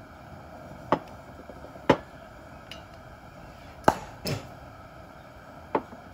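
Five sharp glass knocks, spread a second or two apart, from a glass beer bottle being struck, as in working a cap off without an opener.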